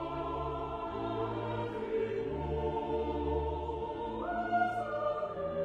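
Choral music: voices singing long held chords, the upper notes stepping up in pitch about four seconds in.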